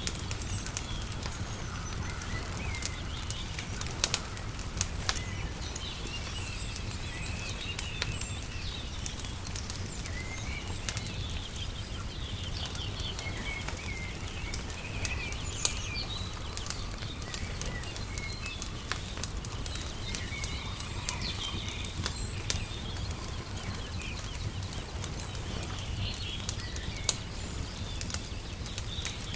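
Layered outdoor ambience: small birds chirping and twittering throughout, and a wood fire crackling with scattered sharp pops, over a steady low rumble.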